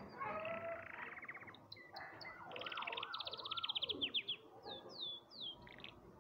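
Pet canary singing: a fast trill, then louder rapid trills with looping, swooping notes underneath, and three short falling whistles near the end.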